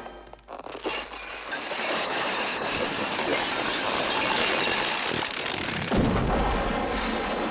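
Comedy sound effect of a grossly overfed man's body exploding: a noisy build-up for a few seconds, then a loud, deep boom about six seconds in.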